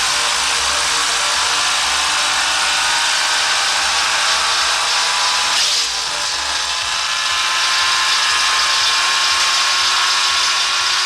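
Rented woodchipper running with a steady, high-pitched whirring and grinding noise. The level dips briefly about six seconds in.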